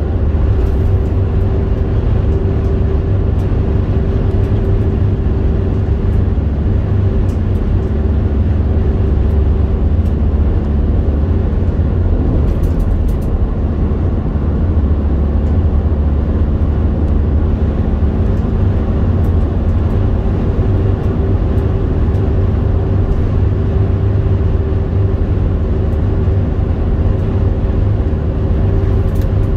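Steady road noise inside a car cruising at motorway speed: a continuous low rumble with a faint steady hum above it.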